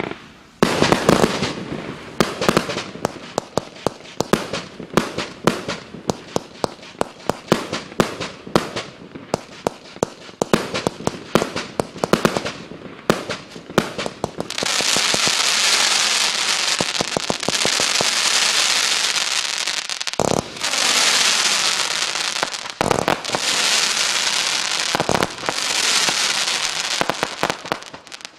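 A 135-shot F2 compound firework cake firing: rapid shots and bangs in quick succession for the first half. Then, from about halfway, a dense continuous crackling hiss, broken by a few louder bangs.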